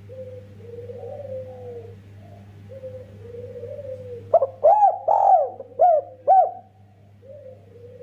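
Spotted dove (derkuku) cooing: soft, drawn-out coos, then about four seconds in a run of five loud, sharply rising-and-falling coo notes over about two seconds, then soft cooing again.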